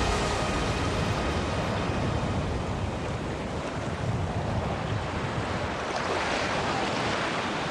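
Surf breaking and washing up a beach, with wind buffeting the microphone.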